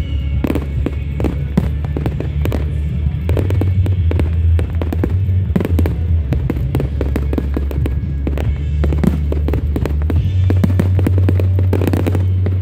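Fireworks going off in quick succession, many sharp bangs and crackles, over loud music with a deep, steady bass.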